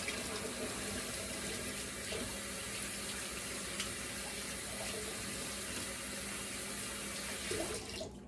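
Kitchen sink tap running steadily while hands are washed under it, shut off shortly before the end.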